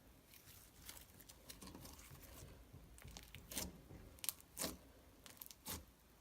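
Slime being worked by hand, giving a string of irregular sticky clicks and pops, with a few louder pops in the second half.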